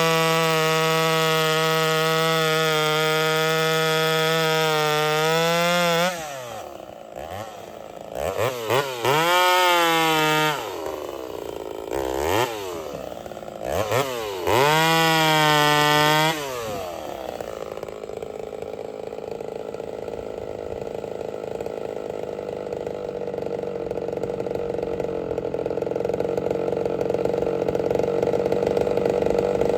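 Ported Homelite VI-130 two-stroke chainsaw held at a steady high rev for about six seconds, then let off the throttle. It is blipped up and back down about three times, then settles into a lower, even idle.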